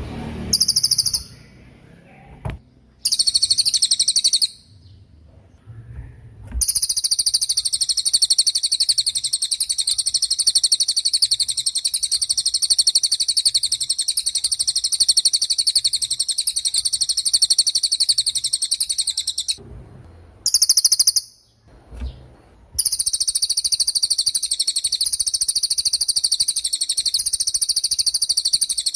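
Cililin songbird singing very high, rapid buzzing trills: two short bursts in the first few seconds, a long unbroken trill of about thirteen seconds, another short burst, then a long trill that continues to the end.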